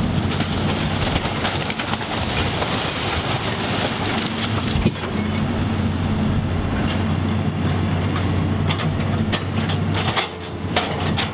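Hydraulic excavator's diesel engine running with a steady low hum as its bucket tears into a wood-frame house, with wood splintering and debris clattering and crashing throughout. One sharp crack stands out about five seconds in.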